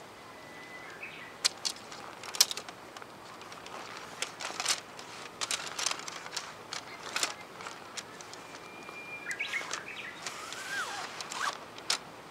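A songbird whistles outdoors: a held note about a second in, and again near the end a held note that breaks into a short falling flourish. Throughout, scattered clicks and rustles come from tent fabric and poles being handled on the grass.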